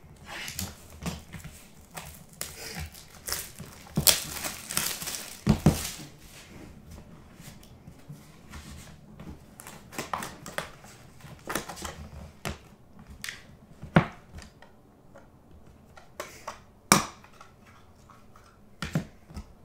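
Box cutter slitting the shrink wrap on a sealed Brooklyn Collection card box, with the plastic wrap crinkling and tearing as it comes off, loudest about four to six seconds in. Then scattered clicks and light knocks as the box is opened and a clear plastic case of cards is handled.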